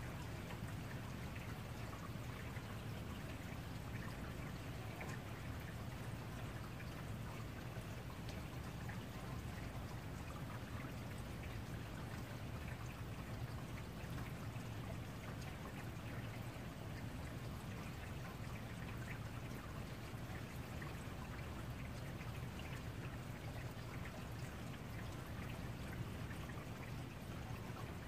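Steady rain falling, with a constant low hum beneath it.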